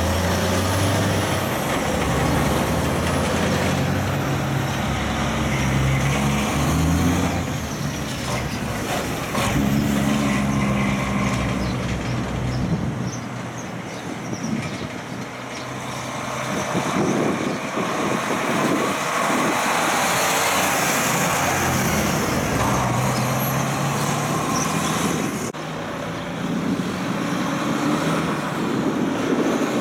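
Heavy diesel trucks passing one after another. A loaded logging truck's engine runs loudest through the first several seconds, then further trucks are heard at a lower level.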